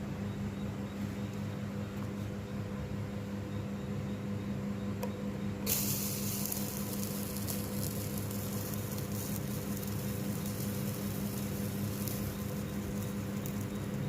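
Red-hot metal ball sizzling in cough syrup: after a steady low hum, a sudden hissing sizzle starts about six seconds in and carries on with scattered crackles.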